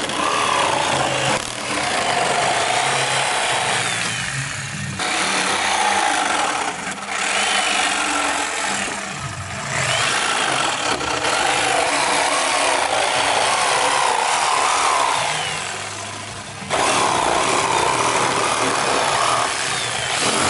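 Corded jigsaw running and cutting curves through a plywood sheet, its motor pitch wavering as it works through the zigzag outline, with a few short breaks where the cut pauses.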